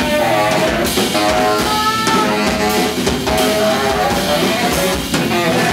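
Free-jazz band playing loud: saxophone lines over electric guitar, electric bass and a drum kit.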